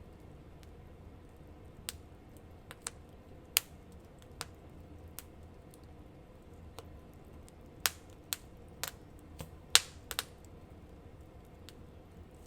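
Wood fire crackling: irregular sharp pops and snaps, a dozen or so, with the loudest about three and a half seconds in and again near ten seconds.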